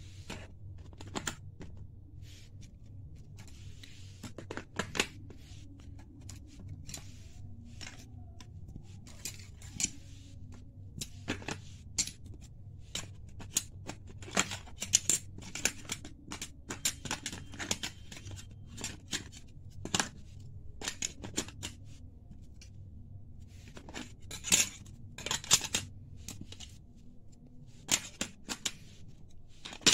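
Geometry-box instruments, a metal compass and plastic set squares, clicking and clattering in irregular sharp taps as they are fitted back into the red plastic tray of a tin geometry box.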